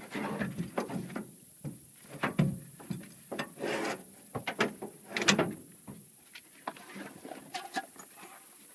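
Irregular clicks, knocks and short rattles of gear being handled and packed up, several clattering clusters a second or so apart.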